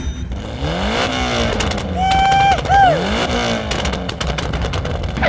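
Vehicle engine sound revving up and down over a steady rumble, with a brief held tone about two seconds in that bends downward.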